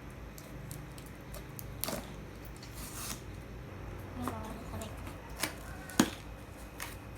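Cardboard box and packaging being opened by hand: scattered clicks and snaps and a short tearing rip a few seconds in.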